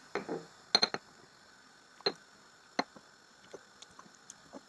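Pestle pounding sweet corn kernels in a mortar: irregular sharp knocks, a quick run of three about a second in, then single taps spaced farther apart.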